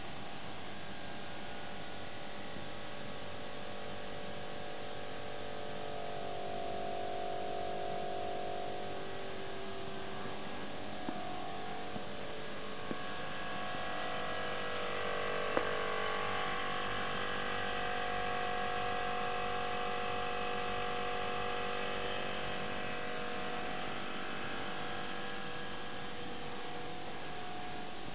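Small air compressor in the base cabinet of a bench machine running with a steady hum of several tones, swelling slightly in the middle, with a few light clicks partway through.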